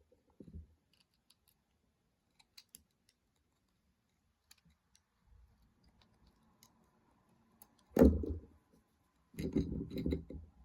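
Scattered small clicks and taps of 3D-printed plastic model parts being handled and fitted together. A sharp knock comes about eight seconds in, then a few dull thumps near the end.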